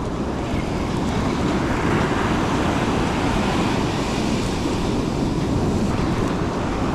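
Steady wind buffeting the microphone over the wash of breaking surf.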